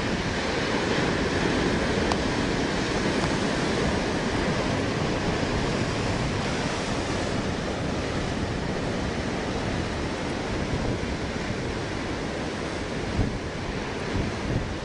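Rough storm-surge surf breaking on the shore, a continuous rush of waves, with wind buffeting the microphone.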